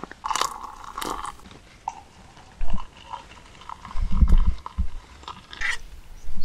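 Handling noise of camping cookware: rustles and small clicks as a collapsible silicone kettle is set on a gas-canister camping stove, with a few dull bumps a little before and after the middle.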